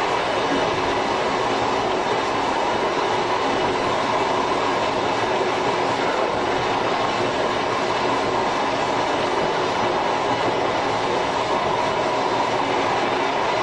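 Tobu 5700 series electric train with nose-suspended traction motors running steadily at speed, heard from the cab: an even, unbroken running noise of wheels on rail and drive.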